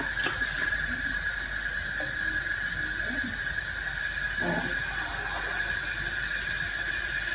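Strips of dryad's saddle mushroom go into hot oil in a frying pan and begin to sizzle about four seconds in, with a few crackles near the end. A steady high-pitched whine runs underneath throughout.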